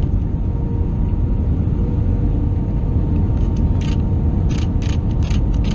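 Steady low rumble of an Airbus A320 airliner cabin in flight, the engine and airflow noise with a faint steady hum. A few brief hissy clicks come in the second half.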